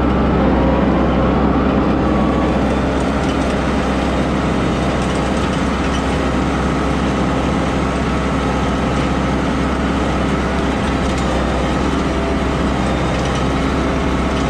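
An engine running steadily at an even speed, with a low hum under it.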